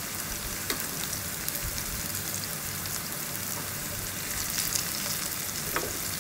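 Thin round potato slices shallow-frying in a little hot oil in a pan: a steady sizzle with fine crackling. A couple of light clicks stand out, about a second in and near the end.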